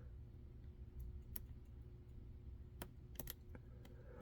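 A handful of faint, scattered metallic clicks from a lock pick working the pins of a six-pin CFG 3-star euro cylinder under tension, as the pins are probed one by one with the core in a false set.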